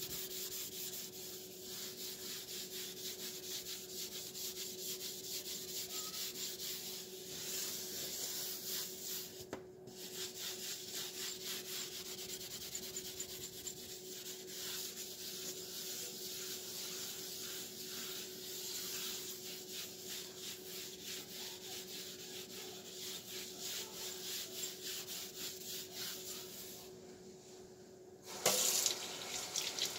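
A hand scrubbing a smooth glass-ceramic electric cooktop with cream cleaner, in quick, repeated back-and-forth rubbing strokes over a steady faint hum. Near the end the rubbing stops and a couple of short knocks follow.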